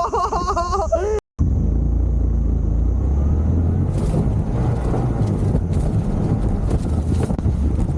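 A moped riding along: a steady low rumble of the engine and the ride. A man's voice exclaims briefly in the first second, before a cut.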